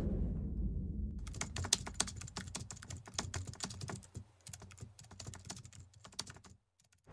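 Rapid, irregular clicking like keyboard typing, an intro sound effect. It starts about a second in, thins out and fades, and stops about half a second before the end. Beneath the first second the low rumble of a whoosh effect dies away.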